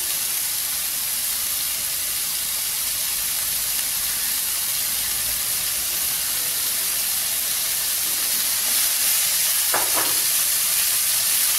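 Shredded cabbage, carrot, onion and mushrooms sizzling steadily in hot oil in a non-stick kadai as they sauté. The sizzle is a little louder near the end, when the vegetables are stirred with a spatula.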